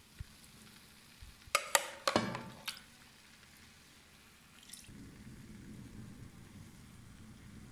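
Metal slotted spoon clicking and knocking against a plastic bowl and a metal cooking pot as wet chicken masala is spooned onto a layer of rice: a cluster of knocks around two seconds in and one more near five seconds. A low, steady hum sets in about five seconds in.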